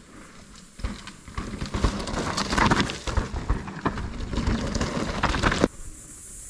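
Mountain bike riding down a rough, rutted dirt trail: tyres crunching over dirt and rocks with the bike rattling over the bumps. It starts about a second in and cuts off abruptly near the end.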